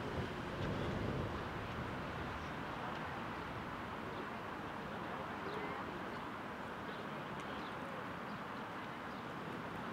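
Steady outdoor background noise with a few faint bird chirps, and a brief low rumble about a second in.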